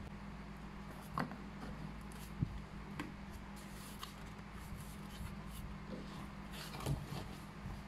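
Cardboard mailer being folded, pressed and handled, with scattered soft taps, knocks and rustles over a steady low hum.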